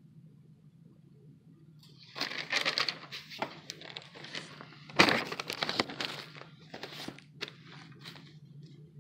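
Paper pages of a spiral-bound notebook being turned and handled: a run of rustles and crinkles starting about two seconds in, with the loudest crackle about five seconds in.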